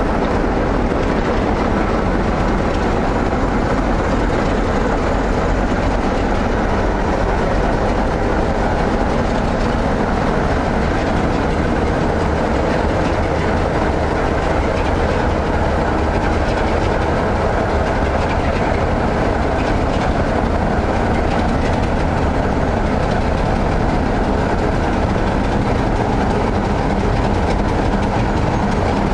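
Class 33 diesel locomotive's Sulzer eight-cylinder engine running steadily as the locomotive draws slowly away with its train.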